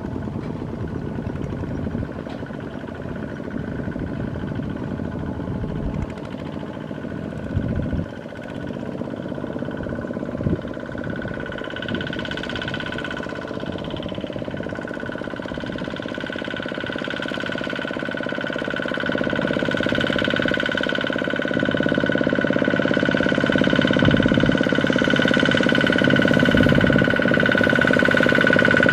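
Single-cylinder diesel engines of Kubota ZT155 two-wheel walking tractors pulling loaded rice trailers, running steadily and growing louder in the last third as one comes close. A couple of brief knocks sound in the first half.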